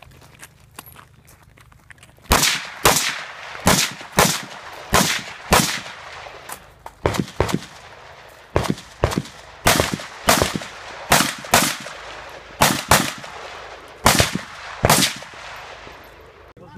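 Semi-automatic rifle fired about twenty times in quick, uneven strings of single shots and pairs, starting about two seconds in, each shot followed by a short echo, with brief pauses between strings as the shooter engages targets across an IPSC stage.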